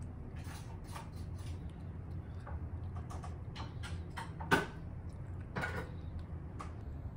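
Japanese Spitz eating from a stainless steel bowl: irregular clicks and clinks of its teeth and the food against the metal, with one louder knock about four and a half seconds in.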